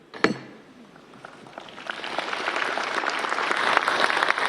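A single sharp knock, then an audience's applause building after the summit is declared open, swelling to steady, dense clapping by about two seconds in.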